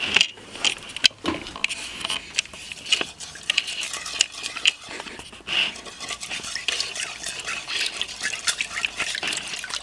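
A Sharpie marker stirring a mix of glue and borax water in a bowl while it turns to slime: continuous wet sloshing with many quick clicks and taps of the marker against the bowl.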